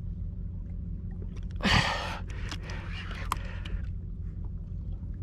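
A man's heavy gasping breath, loudest about two seconds in, with a few weaker breaths after it: an angler out of breath from a long fight with a fish on a bent rod. A steady low rumble runs underneath, with scattered light clicks.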